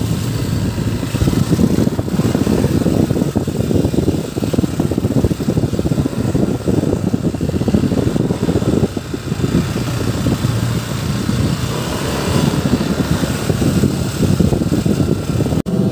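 Motorcycle running as it rides along, with a steady low rumble. The sound drops out for a moment near the end.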